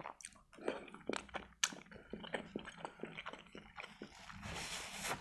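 Close, wet chewing of a boiled pelmeni dumpling: a quick run of soft mouth clicks and smacks. About four seconds in, a paper napkin rustles.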